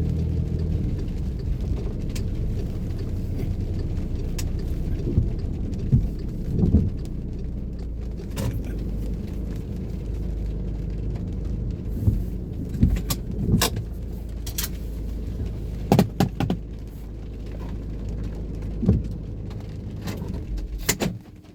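Low steady rumble of a car heard from inside the cabin, with scattered sharp clicks and knocks at irregular intervals. The rumble drops away near the end.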